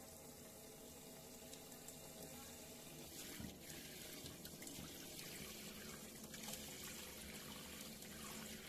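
Kitchen tap water running into a pot of raw rice, with a hand swishing and rubbing the rice in the water to rinse it from about three seconds in.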